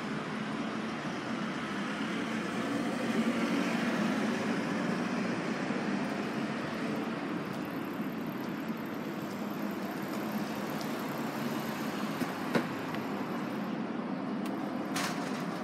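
Suzuki GSX1300R Hayabusa's inline-four engine idling steadily through a Yoshimura slip-on exhaust, with a single sharp click about twelve seconds in.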